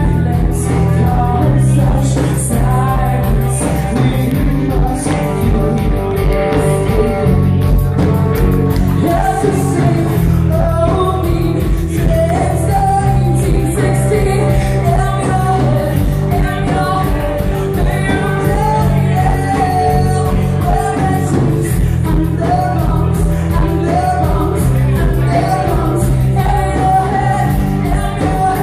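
A live rock band playing loud: a singer over electric guitars and drums.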